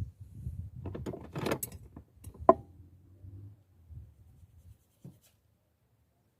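Pressure cooker parts being handled: rubbing and rustling, then one sharp metallic clink with a brief ring about two and a half seconds in, and a small knock near the end.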